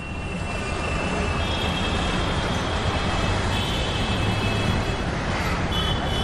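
Steady rumble of city vehicle traffic, with thin high squealing tones that come and go.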